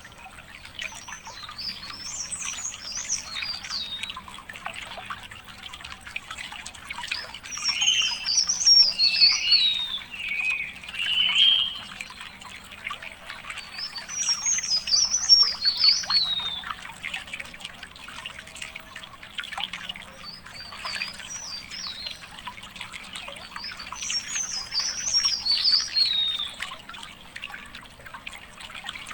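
A songbird singing short, high warbled phrases that fall in pitch, one every six seconds or so, over a faint crackling background.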